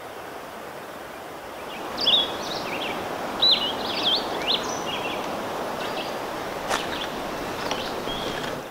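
Small birds chirping and twittering in quick rising and falling calls over a steady outdoor hiss that swells about two seconds in, with one sharp click a little past the middle.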